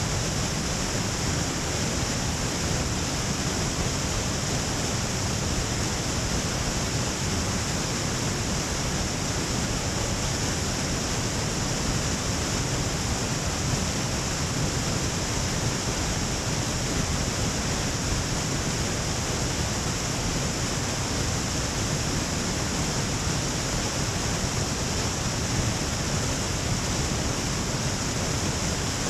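Waterfall pouring into a pool at its foot: a steady, even rush of falling water.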